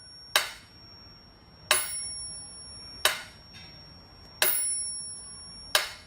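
Five sharp, evenly spaced clinks, about one every second and a half, each ringing briefly with a bright, bell-like tone.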